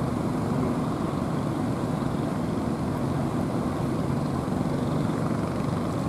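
Outrigger fishing boats' engines running in a steady drone, mixed with the rush of rough, breaking surf.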